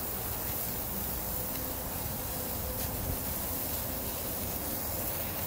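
Gas grill's burners running under sizzling burger patties: a steady hiss with a low rumble.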